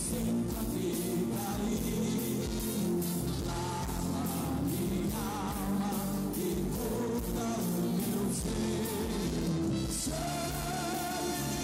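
Live Christian gospel band performing a song, with lead vocals over backing singers, acoustic guitar and band accompaniment; a long held sung note comes near the end.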